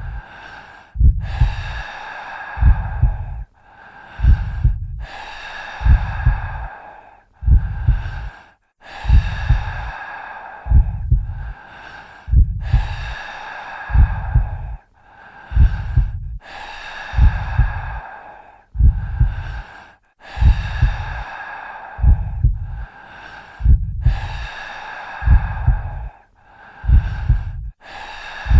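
Heartbeat sound effect with breathing: deep double thumps (lub-dub) repeat steadily about every second and a half, with heavy breaths drawn in and let out between them.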